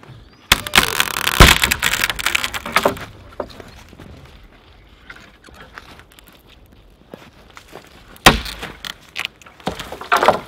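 Wrist-thick dead maple trunk, notched all round with a knife, cracking and splintering as it breaks and goes over, with a sharp snap about a second and a half in. More crunching comes about eight seconds in and again near the end.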